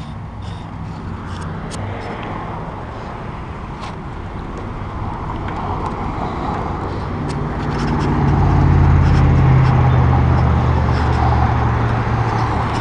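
Street traffic heard from a bicycle: a steady rush of air and road noise with small rattles and clicks. A motor vehicle's engine hum grows louder from a little past halfway and stays loud.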